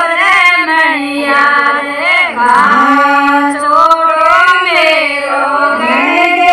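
Rajasthani Shekhawati folk song (jija geet) sung by women's voices without instruments: long held notes that slide up and down in pitch, going on without a break.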